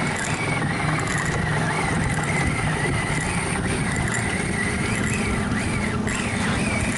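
Boat engine running steadily, with a high whine wavering in pitch above it.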